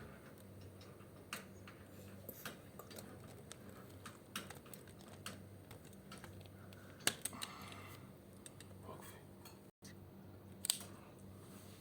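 Scattered light clicks and taps, irregular and a few per second, over a steady low electrical hum.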